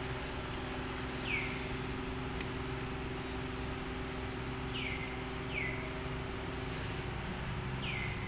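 A bird gives four short calls, each a quick falling chirp. Behind them is a steady outdoor hiss and a faint low hum that fades out near the end.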